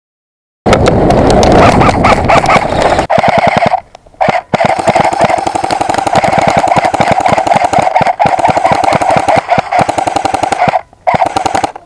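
Airsoft M4A1 rifle firing long full-auto bursts: a fast, even rattle of shots with a steady buzz under it. It starts about a second in and breaks off briefly about four seconds in and again near the end.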